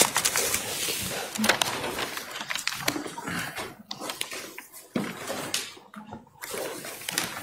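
Courtroom movement noise: shuffling, scattered light clicks and knocks, and faint murmured voices.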